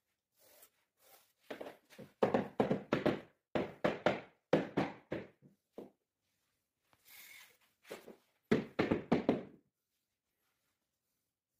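Rubber mallet knocking a repaired wooden floorboard down into place: a run of about ten quick dull thuds, a short hiss after a pause, then another quick run of four or five thuds.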